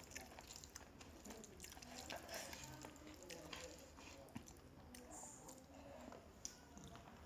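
A person chewing rice and curry close to the microphone, faint, with many small wet mouth clicks and smacks.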